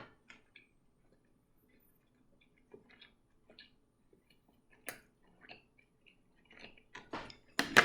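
A person chewing a mouthful of sushi: faint, scattered mouth clicks and smacks, with a louder, brief noisy sound near the end.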